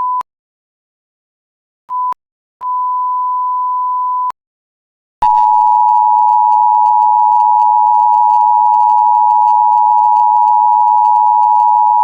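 Electronic alert tones. A single-pitch beep stops right at the start, then a short beep and a longer beep come at the same pitch. About five seconds in, the steady two-tone EAS attention signal starts and holds at a loud level.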